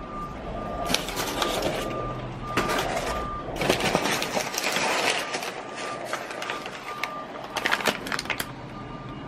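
An electronic beeper sounding a steady high beep over and over, about three beeps every two seconds, with bursts of rustling and clatter over it, loudest about four to five seconds in.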